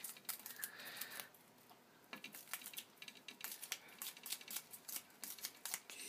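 Peach-faced lovebird snipping strips off a sheet of paper with its beak: a run of faint, quick, sharp clicks, with a short pause a little over a second in.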